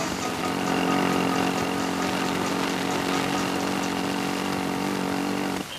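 Car engine running at a steady speed with an even buzzing tone, cutting off abruptly just before the end.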